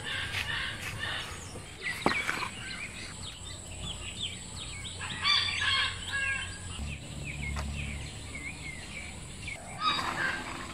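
Outdoor birdsong: many small birds chirping and calling, with fowl calling among them and a louder burst of calls about five seconds in. One sharp click about two seconds in.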